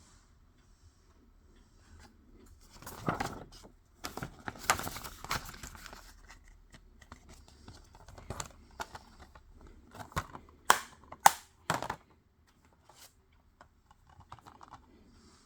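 Plastic shrink-wrap being torn and crinkled off a Blu-ray case, loudest from about three to six seconds in, then several sharp plastic snaps near the end as the case is handled.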